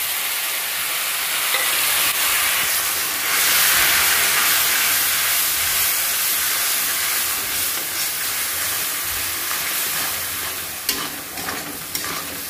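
Ground spices, mixed with a little water, sizzling in hot oil with fried onions in a kadhai while a metal spatula stirs and scrapes them. The sizzle grows louder about three seconds in and eases a little near the end.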